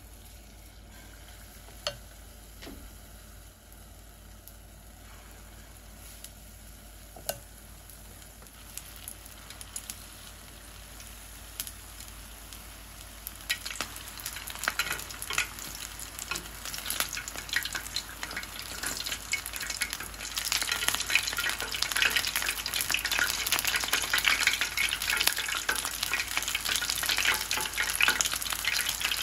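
Beer-battered shrimp deep-frying in hot oil: a crackling sizzle that starts faint and swells steadily louder from about halfway through as more pieces go into the oil. A couple of sharp clicks sound in the first several seconds.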